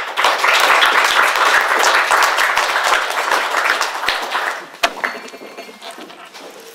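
Audience applauding after a talk, full for about four and a half seconds and then dying away, with a single sharp knock as it fades.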